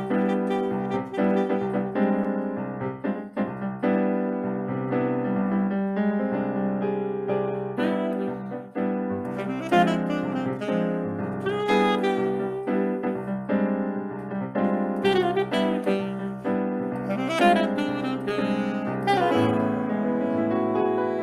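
Saxophone playing a Brazilian tune live, with piano accompaniment and a melody line that bends in pitch.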